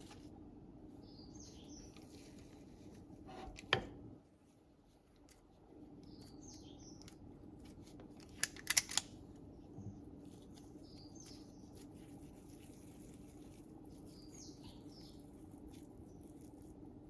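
A small bird chirping in the background, one short call every few seconds, over a steady low hum. A single sharp knock comes a little under four seconds in, with the hum dropping out briefly after it, and a quick run of three clicks comes near the middle.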